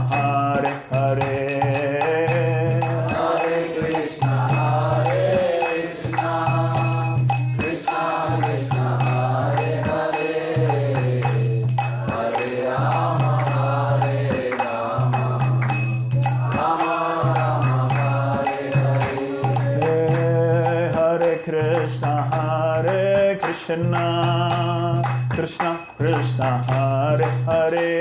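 Devotional bhajan singing with instrumental accompaniment and a regular percussion beat.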